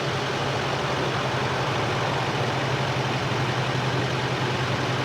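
Steady engine drone and road noise heard inside a moving vehicle's cabin, a constant low hum under an even rushing noise.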